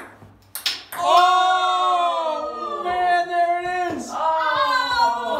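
A few sharp clicks from the ping pong ball and flicked bottle cap, then about a second in a loud, long excited yell, its pitch wavering as it is held nearly to the end: a cheer at the trick shot landing.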